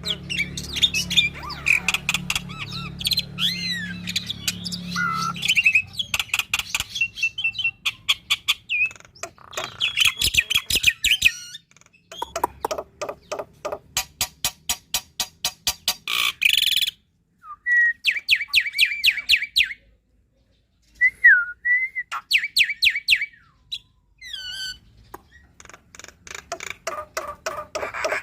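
Black-winged myna (jalak putih) singing a long, varied song packed with mimicked phrases (full isian): fast trains of repeated chattering notes, gliding whistles and harsh squawks, broken by a couple of short pauses in the second half.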